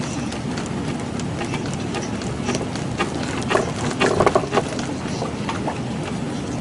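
Rattling and knocking of loose fittings aboard a boat as it is shaken by an earthquake: irregular sharp clicks over a steady noisy background, with a denser, louder flurry of knocks from about three and a half to four and a half seconds in.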